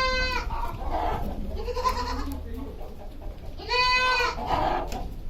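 Goats bleating: three calls, the loudest near the end.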